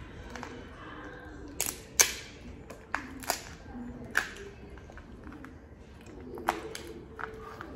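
King crab leg shells cracking and snapping as they are broken apart by hand: a string of sharp cracks, about six over several seconds, the loudest about two seconds in.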